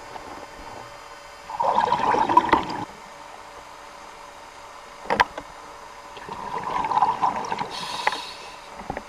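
Scuba diver's regulator underwater: two bursts of exhaled bubbles, one about a second and a half in and a longer one from about six seconds, over a steady hiss, with a single sharp click between them.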